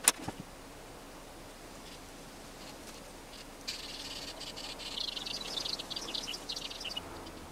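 Fine paintbrush bristles scratching and dabbing against carved pine, a faint irregular high scratchy hiss that starts about three and a half seconds in and stops near the end, after a single click at the very start.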